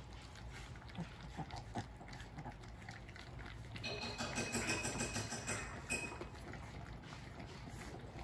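A litter of French bulldog puppies eating from one shared bowl: scattered wet chewing and smacking with grunting snuffles, busier and louder for about two seconds in the middle.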